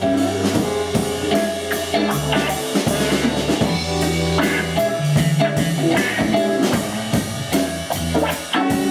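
A live band playing an instrumental passage: a drum kit keeping a steady beat over a bass line and guitar.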